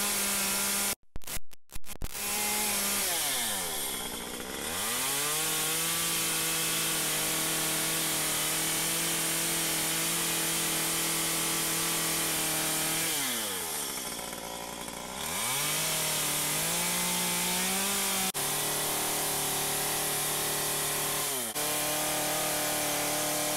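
Stihl MS 193 C, a small two-stroke top-handle chainsaw, running at high revs while its bar shapes and smooths a small wooden bear carving. The pitch holds steady most of the time but drops and climbs back twice as the throttle is eased off and opened again.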